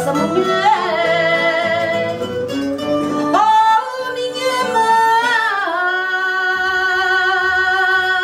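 Fado singing: a woman's voice holding long notes with vibrato, the last one held for about three seconds. Plucked Portuguese guitar and viola de fado accompany her and drop out under the final held note.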